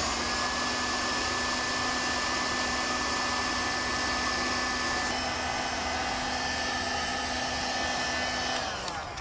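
Electric heat gun running steadily, its fan blowing hot air to shrink and seal a heat-shrink butt connector on a wire. It switches off near the end and its fan winds down with a falling pitch.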